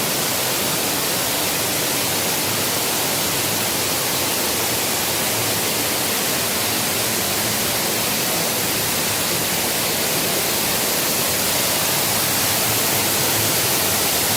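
Steady rush of a waterfall, an even hiss of falling water with no breaks, growing slightly louder near the end.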